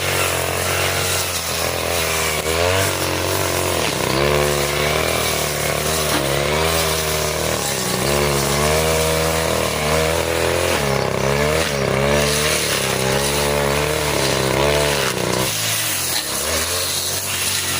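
A 40cc two-stroke brush cutter running hard, its engine pitch dipping and recovering over and over as the blade cuts through thick grass. Near the end the revs fall off.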